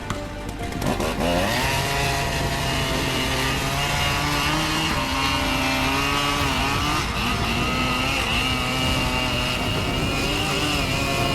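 Chainsaw revving up about a second in, then held at high speed with small dips and rises in pitch.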